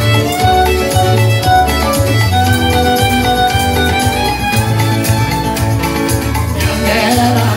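Live band playing a lively instrumental passage, a fiddle carrying the melody over guitar and a strong pulsing bass.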